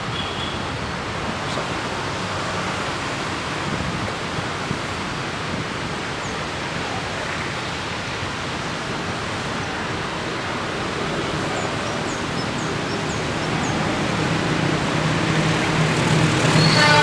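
Steady rushing noise, then an approaching GE CC 206 diesel-electric locomotive growing louder over the last few seconds, its engine hum coming through near the end.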